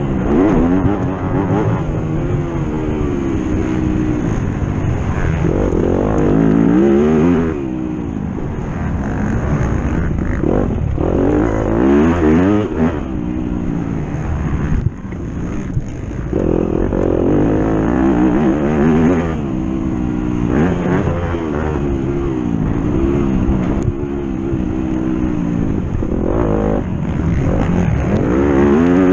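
A racing engine driven hard, its pitch climbing and dropping over and over as it is run through the gears and lifted off between pulls.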